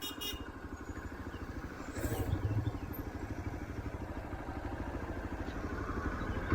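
A motor vehicle's engine running at idle with a rapid, even putter, briefly a little louder about two seconds in.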